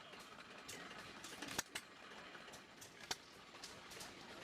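Faint background ambience with scattered sharp clicks or ticks, irregularly spaced.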